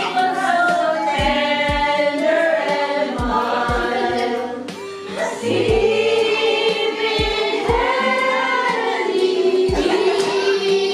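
Background music: a song with layered, choir-like sung vocals over low drum thumps, easing off briefly about five seconds in.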